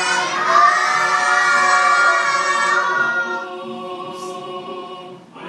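A group of young children singing together without accompaniment, strongest for the first three seconds and then softer.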